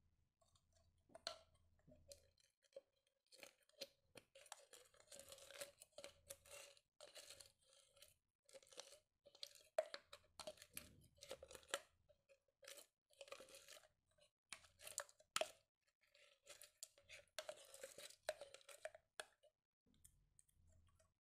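A plastic spoon scooping and scraping sticky glitter slime out of a clear plastic bottle. It gives quiet, irregular crackles, clicks and squelches, with plastic rubbing on plastic.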